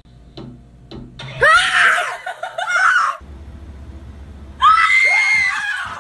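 People screaming in fright: a long high scream about a second and a half in, then after a short pause a second high-pitched scream about four and a half seconds in.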